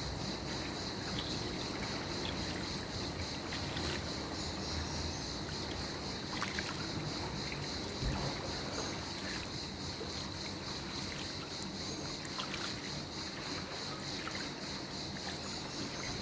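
Quiet lapping and small splashes of pool water as a swimmer moves slowly through it, head above the surface, with a few soft ticks and a steady high-pitched hum underneath.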